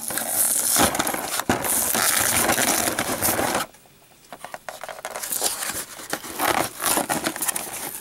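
Plastic blister pack crinkling and its cardboard backing card tearing as a toy-car multipack is ripped open, with many small crackles and a brief pause a little past the middle.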